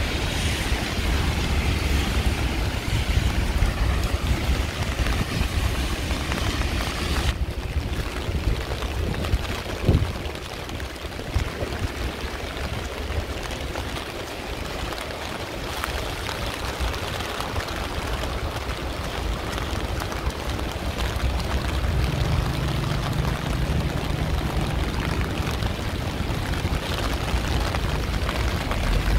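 Heavy rain falling on a city street, a steady hiss with a low rumble underneath. The hiss dulls suddenly about seven seconds in, with a single sharp knock a few seconds later.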